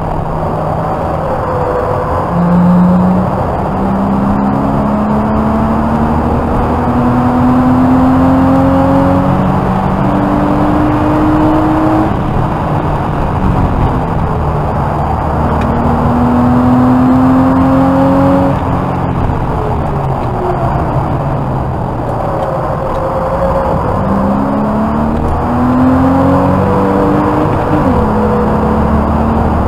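Porsche Boxster 986's 2.5-litre flat-six engine heard from inside the cabin under hard acceleration. Its pitch climbs through several upshifts, drops away twice as it lifts off, then climbs again with another shift near the end.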